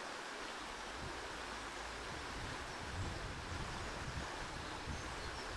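Steady rushing outdoor ambience in woodland, with low bumps of wind on the microphone from about three seconds in.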